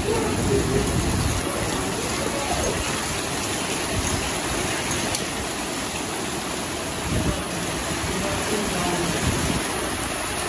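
Heavy rain falling hard and steadily onto flat concrete rooftops, a dense unbroken hiss.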